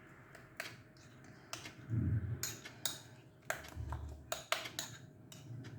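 A spoon clicking and tapping irregularly against a dish while thick honey-and-sugar syrup is stirred and handled, with a couple of soft low thumps.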